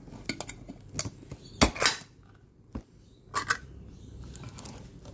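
Ring-pull lid of a metal dog-food can being pried up and peeled back: a series of sharp metallic clicks and short scrapes, the loudest about a second and a half in.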